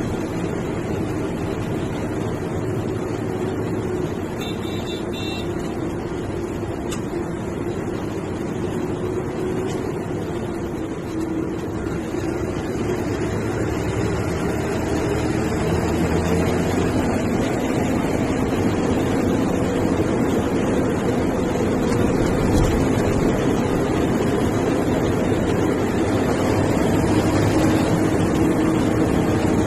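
MSRTC bus's diesel engine running under way with road and tyre noise. It is steady, with slight shifts in engine pitch, and grows gradually louder over the second half.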